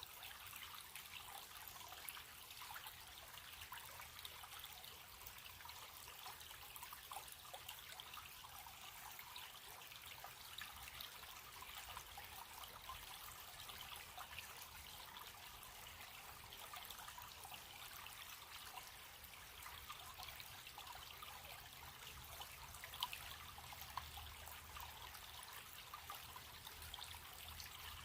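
Faint, steady trickling and babbling of a running stream, full of small splashes, with a couple of slightly louder splashes near the end.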